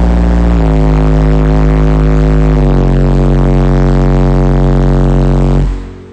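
Car-audio subwoofer, a 12-inch Tiger Audio 1300 W RMS, playing heavy bass music very loud: long, distorted, buzzing bass notes that step down in pitch twice, then cut off shortly before the end.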